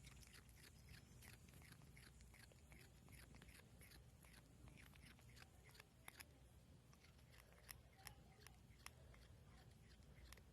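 A cat grinding its teeth: a quick run of faint scraping clicks, about four a second, thinning after about halfway to a few sharper, separate clicks.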